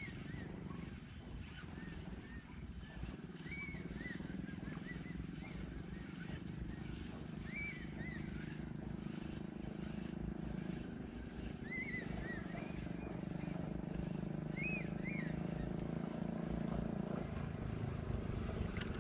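Open-air ambience: short, arched bird chirps repeating every couple of seconds over a steady low rumble.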